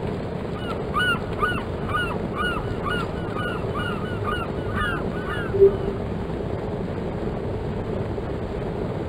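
A bird honking repeatedly: about a dozen short calls in quick succession, which stop about halfway through, over a steady rushing background noise.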